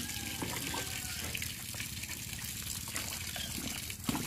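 Hot scalding water sloshing and hissing in a large metal pot as chickens are stirred in it with a wooden stick before plucking, with a short knock about four seconds in.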